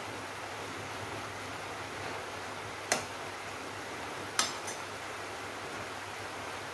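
Long metal spatula knocking against an aluminium wok twice, about three seconds in and again about a second and a half later, over a steady hiss.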